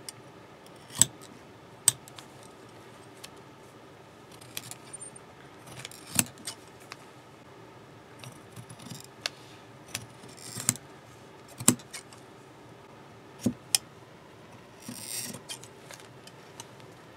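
Large steel tailor's shears cutting through a paper pattern and microfiber fabric: a series of separate sharp metallic snips and clicks at uneven intervals, with a short rustle near the end.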